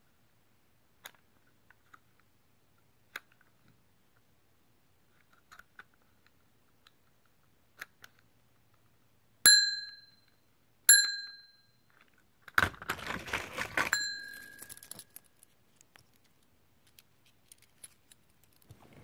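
Small metal object ringing: two sharp, bell-like dings about a second and a half apart, then a couple of seconds of rattling jangle with a third ding, among faint scattered clicks.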